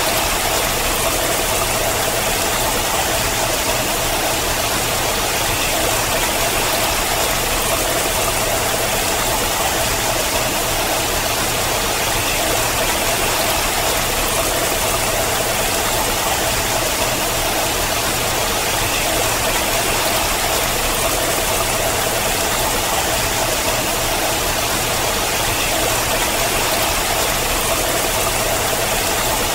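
Water falling down a steep rock face in many thin streams, splashing in a steady, even rush.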